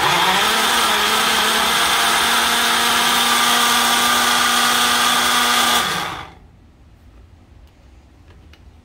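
Personal bullet-style blender, pressed down to run, blending mango chunks and almond milk into a shake. The motor starts at once, runs steadily for about six seconds and then stops and winds down.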